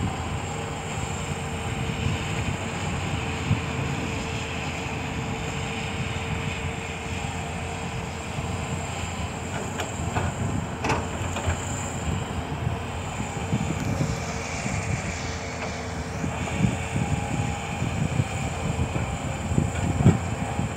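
Caterpillar 320D hydraulic excavator's diesel engine running steadily under working load, with a steady high tone over the rumble. There are a couple of sharp clanks about ten to eleven seconds in, and a hiss swells and fades a little later.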